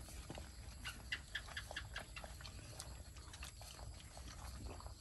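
Several puppies eating together from a metal bowl: lapping and chewing, a busy run of small irregular clicks and smacks, thickest from about one to two and a half seconds in.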